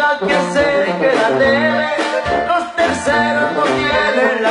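Band music, with a drum kit playing the beat under pitched instruments.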